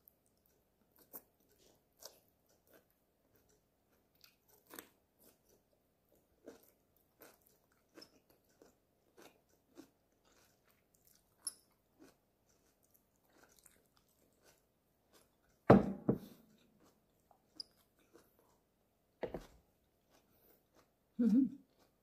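Close-miked chewing of crisp stir-fried Chinese broccoli (kana) stems and beef: small wet crunches and mouth clicks every second or so, with three louder crunchy bites in the second half.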